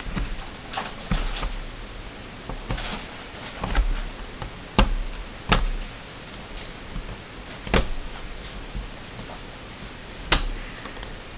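Scattered sharp clicks and taps from laptop parts and tools being handled during disassembly. A few small clusters come first, then single crisp clicks, the loudest near the end.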